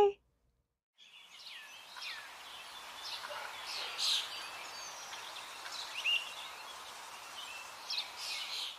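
About a second of silence, then steady outdoor ambience with birds chirping now and then.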